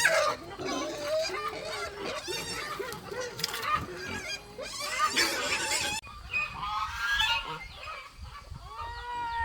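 Domestic geese honking, with many calls overlapping at first. The calls thin out abruptly about six seconds in, leaving a few single honks near the end.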